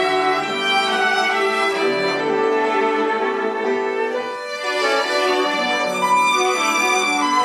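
A string ensemble playing a slow, sustained passage of held notes, violins most prominent, live.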